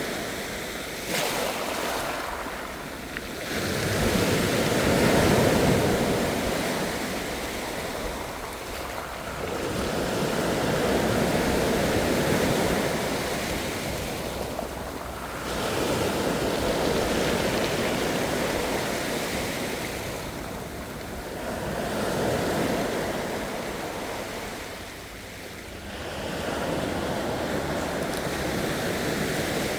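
Ocean waves breaking and washing on the shore, swelling and ebbing in a slow rhythm, about one wave every five to six seconds.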